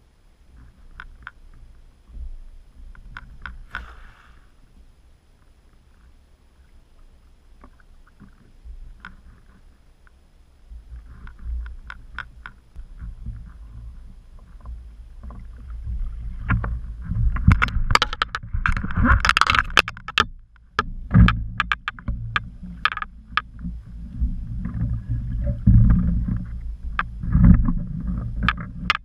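Cast net full of pilchards hauled in by hand and lifted onto a kayak: water splashing and dripping off the mesh with sharp knocks against the hull, a dense run loudest about two-thirds of the way in, over a low rumble.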